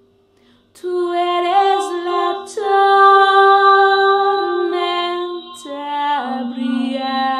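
Woman singing a slow melody without words in long held notes that step from one pitch to the next, over a steady synth tone. It comes in about a second in, after a brief near-silence.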